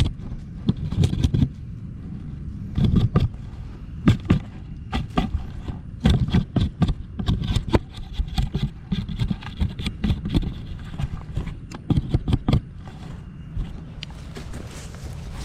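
Knife scraping, peeling and cutting a thistle stalk: a run of irregular scrapes, clicks and knocks that stops about three-quarters of the way through, leaving steady low background noise.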